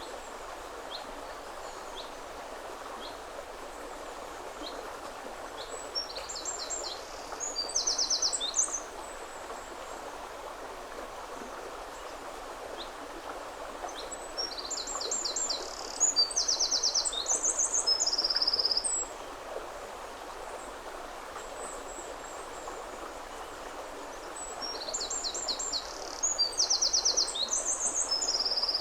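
Steady rush of a woodland river running over stones. A songbird repeats a loud, high trilled song phrase three times, about every ten seconds.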